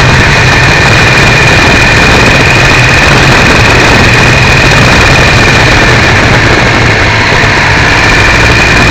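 Triumph 955i three-cylinder motorcycle engine running steadily, picked up by an overloaded keyfob camera microphone on the bike, so it comes through loud and distorted with a steady high-pitched whine over it.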